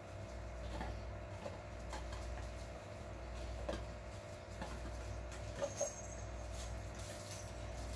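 29-day-old puppies squeaking and whimpering faintly in short scattered bits, with the loudest pair of squeaks close together a little past halfway, and small pattering and clicking as they move around, over a steady low hum.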